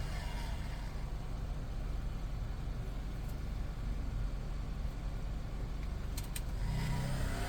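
Steady low hum and hiss of background noise, with two sharp clicks about six seconds in. Near the end a heat gun's fan starts up with a rising whine.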